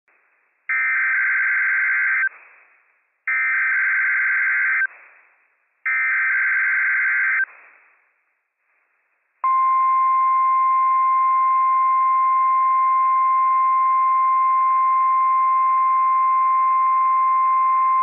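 NOAA Weather Radio Emergency Alert System Required Weekly Test: three short bursts of screeching SAME header data tones, each about a second and a half long, then, about nine seconds in, the steady 1050 Hz warning alarm tone, one unbroken pitch.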